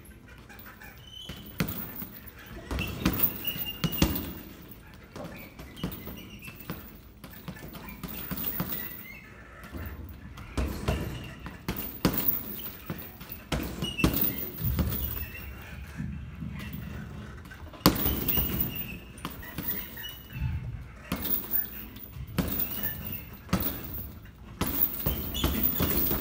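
Gloved punches landing on a hanging heavy bag: irregular thuds in quick combinations with short pauses between them.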